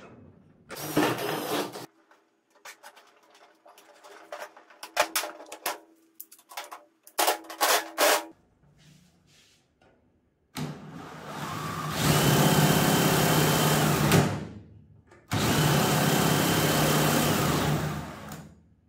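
Handling clicks and short rattles against an aluminium boat hull. Then a DeWalt cordless drill mounted in the hull runs twice, each time for about three to four seconds, with a steady motor hum and a thin high whine. The first run starts softer and gets louder partway through; the second starts and stops abruptly.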